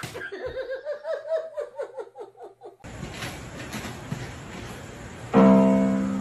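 An electronic keyboard sounds a loud sustained tone about five seconds in, as a kitten's paws press the keys, and then slowly fades. Before it there is a quick string of short pitched chirps, about five a second.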